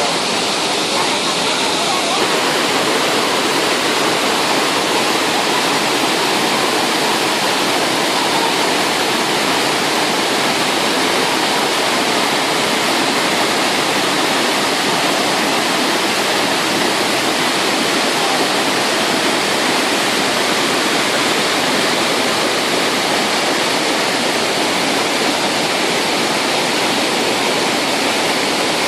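Phlio Waterfall's water rushing, loud and steady.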